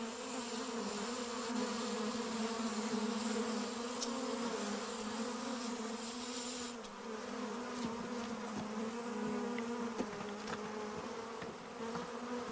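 Large honeybee swarm buzzing as a steady low hum with one clear overtone. A high hiss over it stops about seven seconds in.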